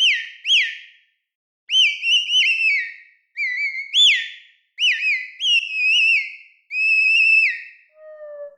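Bird-call imitation played on a Zoot electronic instrument's synth: runs of high, whistled chirps that swoop up and fall away, in short groups with brief gaps between them. About eight seconds in, a lower, steadier tone begins.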